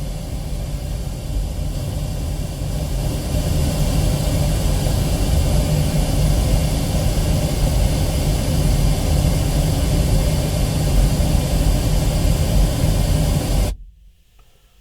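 Pink noise test signal played through a Ford Flex's factory Sony stereo speakers, EQ set flat, heard in the car's cabin as a steady hiss that is heaviest in the low bass. It cuts off suddenly near the end.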